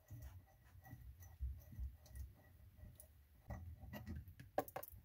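Faint small clicks and taps of hands working a chrome water shutoff valve and its braided steel supply hose, with a few sharper clicks near the end.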